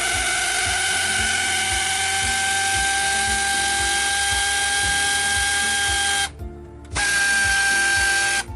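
A power tool running steadily with a hissing whine. It stops just after six seconds in, then runs again in a shorter burst near the end.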